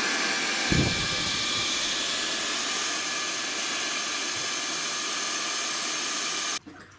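Vacuum cleaner running steadily with a high whine, with a brief low thump about a second in; the noise cuts off abruptly near the end.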